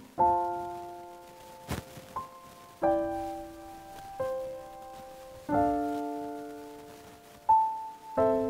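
Background piano music: slow chords struck about every two and a half seconds, each left to ring and fade, with single higher notes between them.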